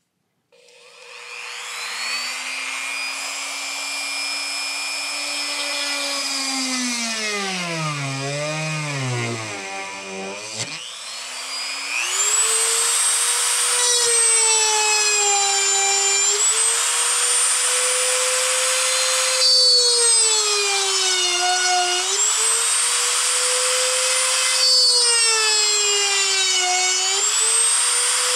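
Handheld Dremel-type rotary tool drilling mounting-post holes in an electronics-bay sled. It starts about half a second in with a steady high whine. Around 7 to 10 seconds its pitch wavers and sinks, then it runs at a higher pitch, dipping briefly every few seconds as the bit bites under load.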